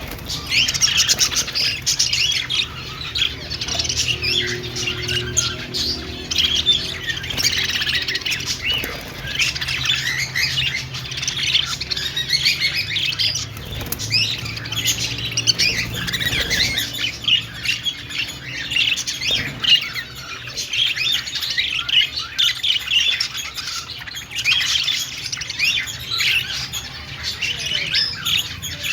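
A flock of budgerigars chirping, warbling and squawking together in a dense, continuous chatter, over a steady low hum.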